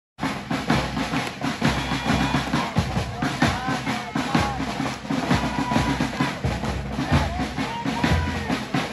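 Drums playing a fast, busy pattern of bass drum and snare, with voices mixed in.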